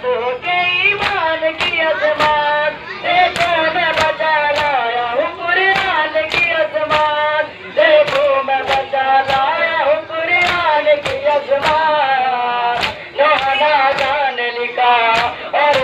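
A single voice singing a nauha, a mourning lament, over the rhythmic chest-beating (matam) of a group of men, open-handed slaps on the chest landing together in a steady beat a little under two a second.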